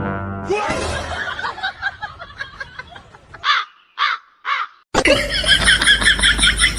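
A bird cawing: three short harsh calls about half a second apart, after a stretch of rapid chattering, then loud dense chattering from about five seconds in.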